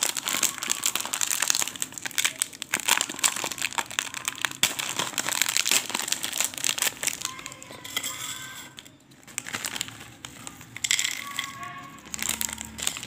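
Metallized foil snack packet crinkling and crackling as hands work it and tear it open, densest for the first several seconds. Near the end the snack sticks are tipped out of the packet onto a paper plate.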